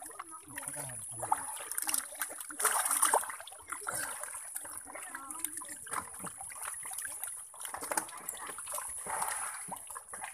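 Muddy shallow water splashing and trickling as a hand gropes through the mud and live walking catfish (deshi magur) wriggle at the surface, with small wet slaps every so often and a few louder splashes.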